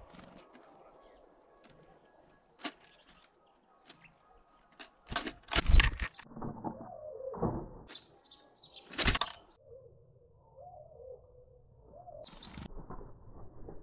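Great tit at a wooden seed feeder right by the microphone: scattered taps and rustles in the seed, then a loud burst of wing flaps with a thump about halfway through as it takes off. More flapping and knocks follow later as a tit lands on the feeder's rim.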